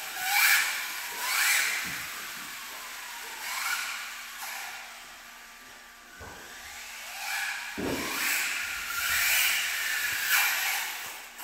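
Small electric RC drift car running on a smooth urethane-coated floor: its tyres hiss and squeak as it slides through turns, in repeated swells with a gliding whine. It grows faint as the car drives away around the middle and louder again as it comes back, with a short thump about eight seconds in.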